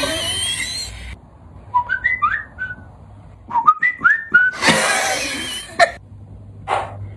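A short whistled phrase of three or four gliding notes, then the same phrase again about two seconds later, led by a few sharp mouth clicks. Loud laughing and shouting from a group of men comes at the start and again just after the second phrase.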